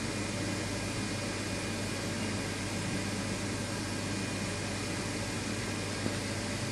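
Steady fan-like hiss and low hum, with a faint steady high tone over it; a small click about six seconds in.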